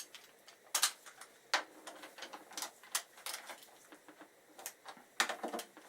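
Irregular light metallic clicks and clinks of hand tools being handled, as a 12 mm socket is readied for the motorcycle's brake caliper bolts, with a short cluster of clinks near the end.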